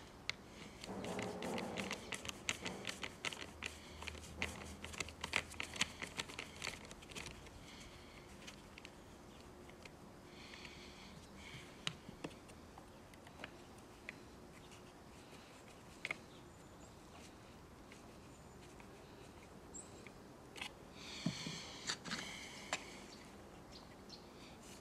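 Small clicks, taps and rattles of hand-work on a Stihl chainsaw's plastic housing and throttle linkage, with a screwdriver, as it is stripped down to refit the throttle cable. They come thick and fast for the first several seconds, then only now and then, with a couple of brief scratchy rustles midway and near the end.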